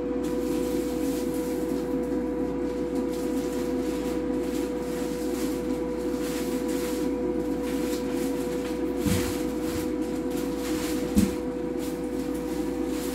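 Air fryer running with a steady electric hum and a fixed whine. Two light knocks of a utensil against a plate come near the end.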